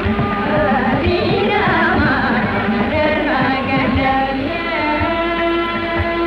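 Carnatic music from a 1965 recording: women singing with instrumental accompaniment, with a dull, cut-off top end typical of an old recording.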